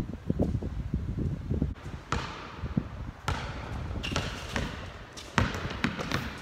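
Basketball bouncing on a hard court as a player dribbles: a string of irregular sharp bounces starting about two seconds in.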